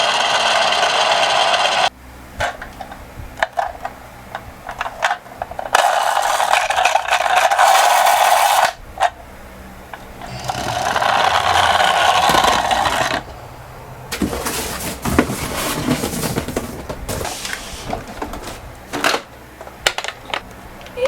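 Toy minicars rolling down a slope: several loud bursts of rolling wheel noise, each a couple of seconds long, with scattered clicks and light knocks in between.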